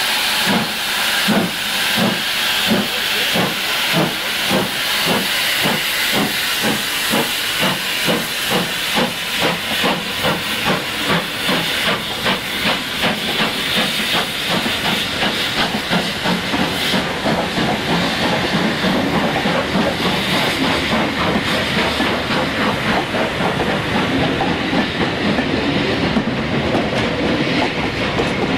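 GWR pannier tank steam locomotive pulling away with a hiss of steam and a steady beat of exhaust chuffs that slowly quickens. After about sixteen seconds the chuffs fade into the steady rumble and clatter of the coaches rolling past.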